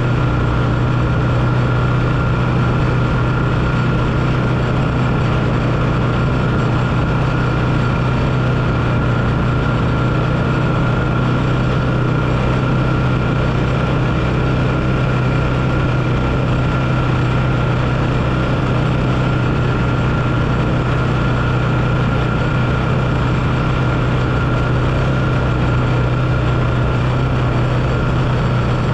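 Four-wheeler (ATV) engine running steadily while riding, its pitch holding even throughout with no revving or gear changes.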